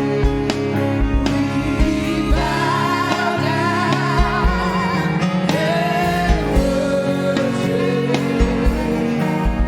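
Gospel praise-and-worship music: a vocalist singing a wavering melody over sustained chords and a steady low drum beat.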